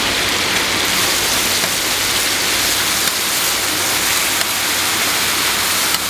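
Tteokgalbi patties sizzling steadily as they cook, an even, loud hiss.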